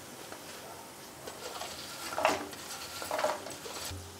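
A wooden spatula scraping and knocking as pieces of fried chicken go into a nonstick pan of frying masala. There are two louder strokes, about two and three seconds in, over a faint sizzle.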